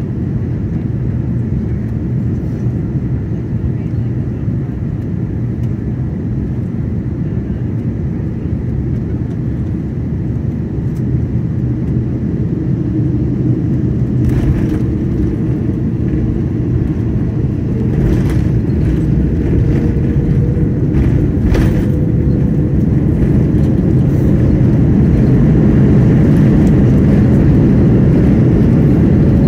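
Cabin noise of an Airbus A330-900neo landing: a steady low rumble of airflow and Rolls-Royce Trent 7000 engines on short final, a few brief thumps from about halfway through as the wheels touch down, then the rumble grows louder as the airliner rolls out and slows on the runway with its spoilers up.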